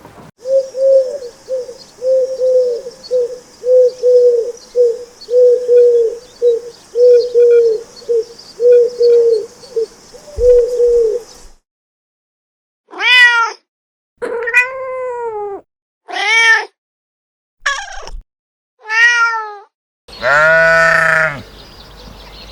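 A cat meowing: a quick run of short, repeated mews for about ten seconds, then after a break several separate, longer meows and one drawn-out call near the end.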